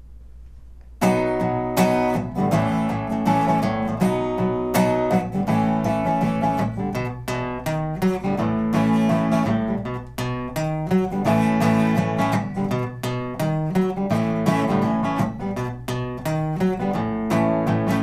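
Resonator guitar played solo, picking and strumming a steady rhythmic pattern that starts about a second in: the instrumental intro of a song before the singing begins.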